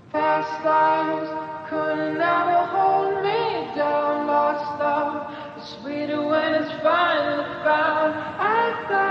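Background music led by a singing voice over held, layered vocal tones; it comes in suddenly right at the start.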